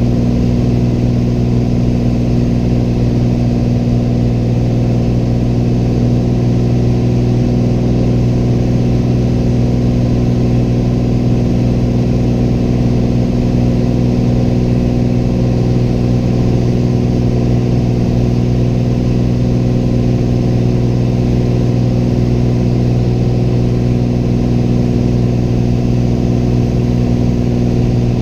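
Single-engine Piper light aircraft's engine and propeller droning steadily in flight, heard inside the cockpit as a constant low hum with no change in pitch.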